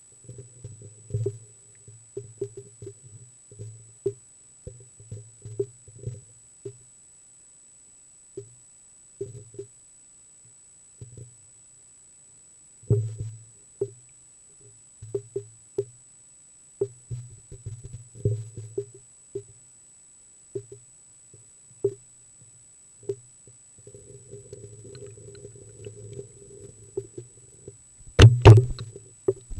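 Irregular muffled knocks and clunks picked up through an action camera's waterproof housing as it hangs and bumps on a fishing line, with a loud cluster of knocks near the end. A thin steady high whine runs underneath.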